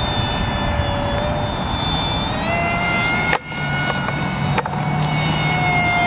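Electric motor of a radio-controlled model plane whining in flight, its pitch stepping up about two seconds in as the throttle is opened, over gusty wind noise on the microphone. The sound cuts out for an instant about halfway through.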